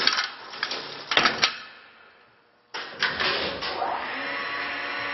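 Metal scissor gate of a lift clattering shut, with several sharp clanks in the first second and a half. After a brief lull, a steady motor hum starts suddenly about three seconds in: the lift setting off on its way down.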